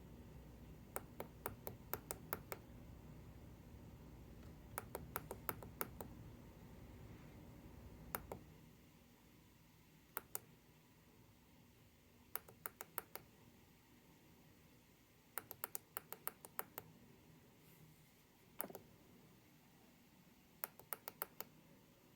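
Sharp clicks tapped out in groups (one, two, five or more quick taps at a time with short pauses between), the rhythm of tap code being keyed in letter by letter. A low background hum drops away about eight seconds in.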